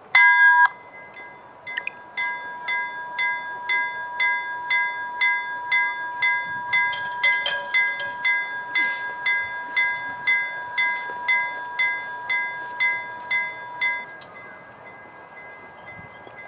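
Railway level crossing warning bell ringing as the crossing activates for an approaching train: one loud ring at the start, then regular strokes about twice a second while the boom barrier lowers. The bell stops about two seconds before the end, once the barrier is down.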